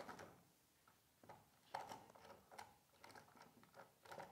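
Faint, scattered light taps and clicks as a wooden block and a parallel bar clamp are handled and set in place.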